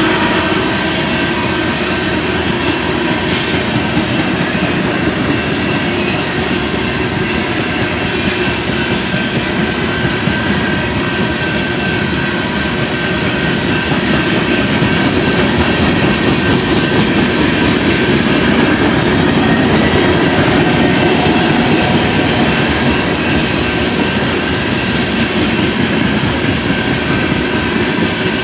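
Freight cars of a long CSX freight train rolling past at close range: a steady, loud rumble of wheels on rail with clickety-clack over the joints and a faint, steady high wheel squeal.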